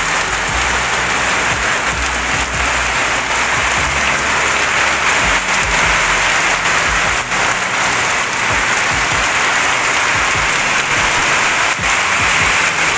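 Heavy rain pouring down steadily: a dense, even hiss of large drops.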